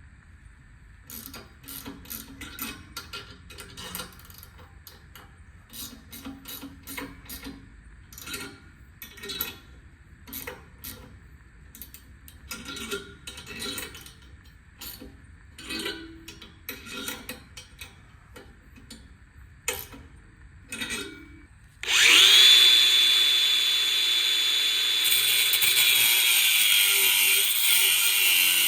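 Ratchet wrench clicking in short runs of strokes as the nut on a square U-bolt is tightened. About 22 seconds in, a grinder starts abruptly with a loud, steady high whine and keeps running, cutting off the bolt ends.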